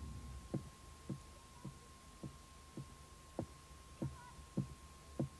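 Slow, even footsteps climbing wooden stairs, a soft thump a little under twice a second, with a faint steady high tone beneath.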